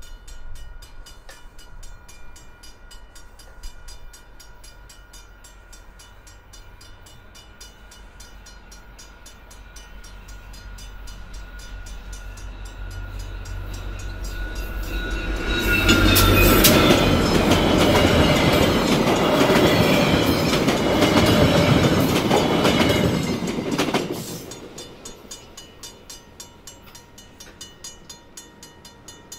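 VIA Rail F40PH-2D diesel locomotive, a 16-cylinder EMD 645 engine, approaching with a low rumble that builds over the first half, then passing close by with its four LRC coaches: loud engine and wheel noise for about eight seconds that drops off suddenly as the short train clears the crossing. A level-crossing bell rings steadily behind it.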